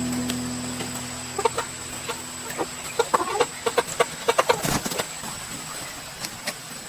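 Chickens clucking in short, repeated calls, over the tail of a music track that fades out in the first couple of seconds, with one sharp knock about two-thirds of the way through.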